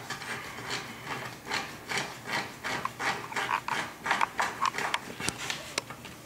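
Toothed curtain drive belt being pulled hand over hand through an aluminium curtain track, rubbing along the channel in a quick series of rasping strokes, about two to three a second, with a few short squeaks between about three and five seconds in.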